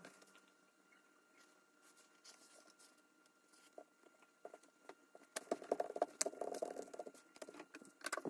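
Faint scratching and clicking of hand work on leather. It is mostly quiet, then a dense run of scratching comes about five seconds in and lasts roughly two seconds, with a few sharp clicks near the end.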